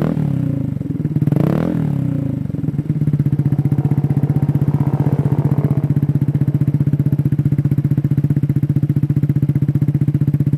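Motorcycle engine through an aftermarket racing exhaust, blipped twice in the first two seconds, each rev rising and falling, then settling into a steady idle with a fast, even pulse.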